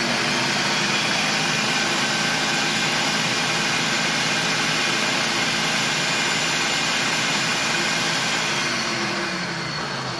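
Countertop food processor running at full speed, its motor and stacked blade whirring as it minces shallots, garlic and cilantro. Near the end the motor is switched off and winds down, its pitch and level dropping.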